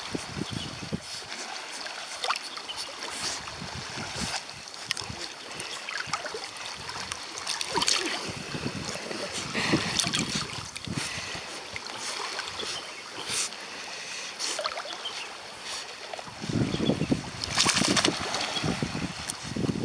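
Sea water splashing and sloshing close to the microphone as dogs paddle by, with a stretch of heavier splashing near the end.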